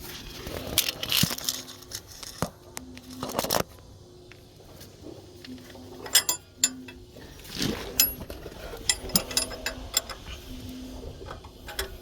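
Metal tools clinking, knocking and scraping against the steel parts of an old forklift's steering linkage: irregular sharp knocks with short scrapes between them, a cluster about six to nine seconds in.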